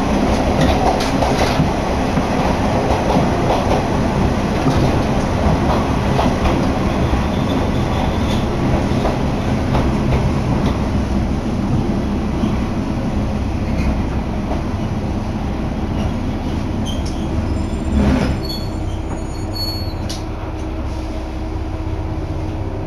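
Interior sound of a Kanto Railway Joso Line diesel railcar slowing into a station: a steady rumble of wheels and engine that gradually eases off. About three-quarters of the way through there is a thump, after which a quieter, steady hum remains.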